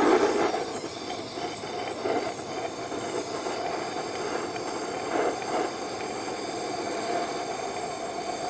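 Handheld gas torch on a yellow fuel cylinder burning with a steady hiss and hum, its flame held on the rusted, seized small engine to heat it free.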